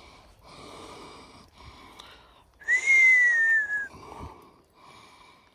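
A man breathing hard, and about halfway through a single admiring whistle: one clear note lasting just over a second that rises slightly and then slowly falls.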